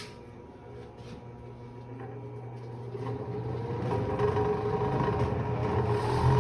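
Electric bench grinder switched on with a click, its motor and wheel spinning up: a steady hum and whine that grows louder and rises in pitch as it comes up to speed.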